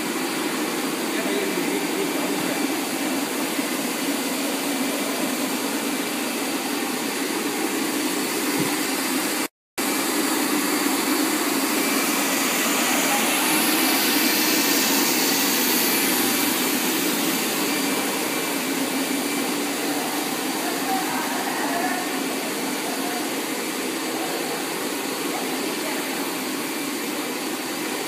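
Plastic spiral hose extrusion line running: a steady, loud whir and hiss of machinery with no let-up, cut by a momentary dropout just before ten seconds in.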